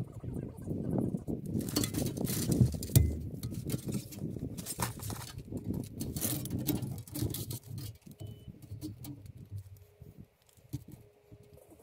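Irregular rustling and crinkling of plastic vapor-barrier sheeting and light knocks and clinks of PVC drain pipe being handled, with one sharp thump about three seconds in. Quieter near the end.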